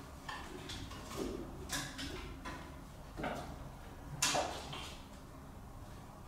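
Kittens playing with cat furniture and toys: a series of short scrapes, scratches and knocks, the loudest about four seconds in.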